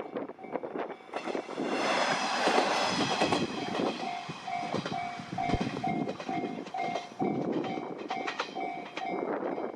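A diesel train running over a Japanese level crossing, its wheels clacking over the rail joints. Through it the crossing's electronic warning bell dings about twice a second.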